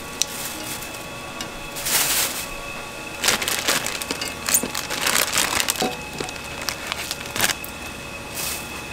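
Plastic bags and an instant-ramen packet crinkling and rustling in several irregular bursts, with crackles from the dry noodle blocks as they are handled and set in a pan.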